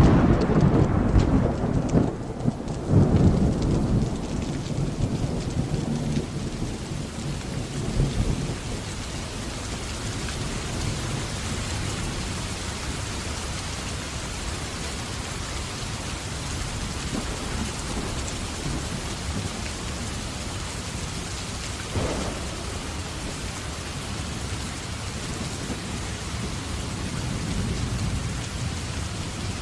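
A roll of thunder: a loud, low rumble that swells twice in the first few seconds and dies away over about eight seconds. Steady heavy rain continues beneath it. A single sharp tap comes about 22 seconds in.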